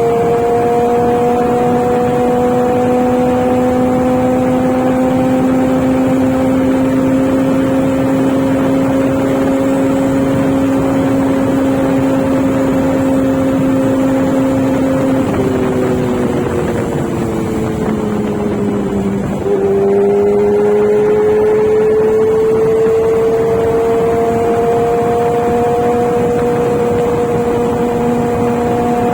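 Kawasaki Z900 inline-four engine running under way at steady throttle, its note climbing slowly. About halfway through, the revs fall away for a few seconds, then pick up sharply and climb again.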